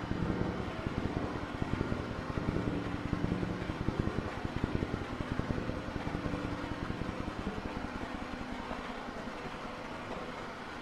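Electronic noise music made on a synthesizer: a dense, rapidly pulsing low rumble under a few held droning tones, slowly fading.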